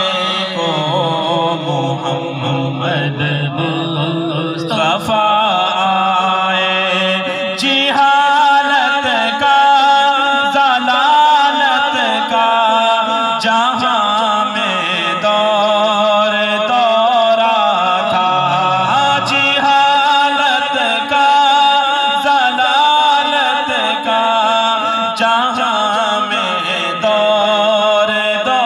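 A man sings an unaccompanied Urdu devotional naat in long, wavering melodic lines through a microphone. A lower sustained vocal hum from a second voice runs underneath.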